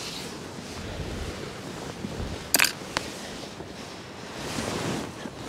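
Two sharp clicks a little under half a second apart, the first the louder, as small fishing tackle is handled, over steady wind and sea wash.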